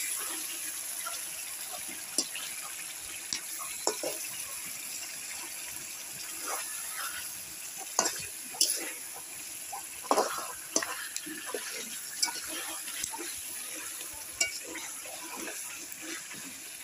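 Fish heads frying in spice paste in an aluminium karai: a steady sizzle, with frequent scrapes and clinks of a spatula stirring against the pan.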